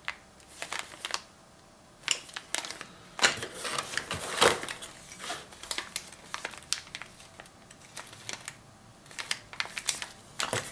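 Clear plastic parts bags crinkling and crackling as they are handled and turned over in the hands. The crackle comes in irregular bursts and is busiest from about two to six seconds in.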